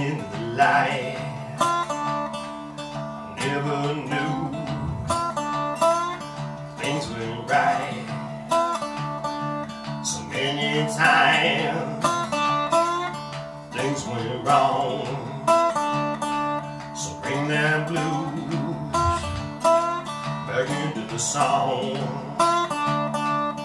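Slide blues played on a lap-style resonator guitar: plucked notes with the slide gliding between pitches, with a man's singing in stretches.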